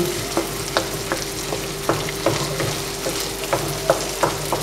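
Goat brains frying in oil and masala in a non-stick wok with a steady sizzle, while a wooden spatula stirs and breaks them up, scraping and tapping against the pan about three times a second.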